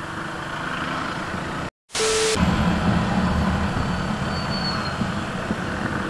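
Motorcycle engine running steadily under way in traffic, with road and wind noise. The sound cuts out completely for a moment about two seconds in, then comes back louder.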